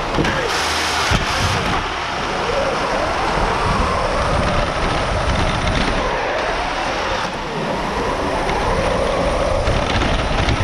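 Electric motors of an FRC competition robot whining, the pitch rising and falling as the robot speeds up and slows, over steady mechanical noise of the drivetrain, picked up by a camera mounted on the robot.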